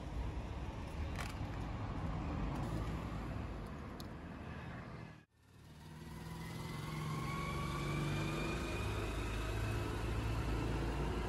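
Faint street traffic: motor-vehicle engines giving a steady low hum. The sound cuts out for a moment about five seconds in, then returns as a low engine hum with a faint whine slowly rising in pitch.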